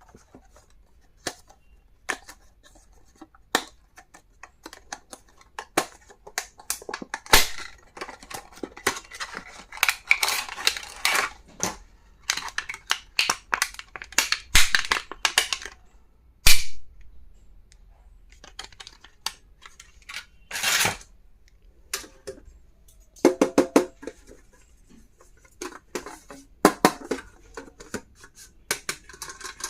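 Stationery items and their plastic packaging being handled and unwrapped: irregular clicks, taps and crinkling rustles, with a quick run of even clicks a little after the middle.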